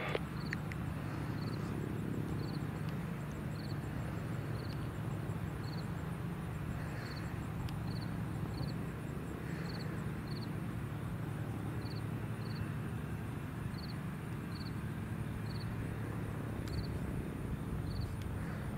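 Low, steady drone of a Cessna 182's piston engine at reduced power on short final. Short high chirps repeat about once a second over it.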